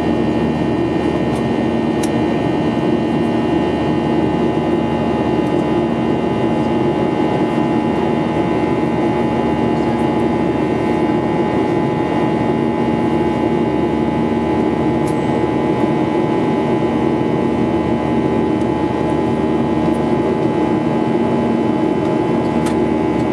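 Cabin noise of a Ryanair Boeing 737-800 in flight, heard from a window seat beside the wing. Its CFM56 jet engines and the airflow make a steady drone with several held tones, and a few faint clicks sound now and then.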